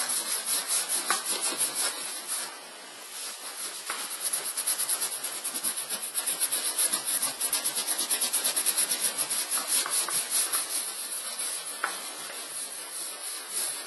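A cloth carrying cleaning cream is rubbed briskly back and forth over the velvety leather of a Lancel handbag, making a dry, scratchy rubbing in quick repeated strokes. The rubbing eases briefly about two and a half seconds in.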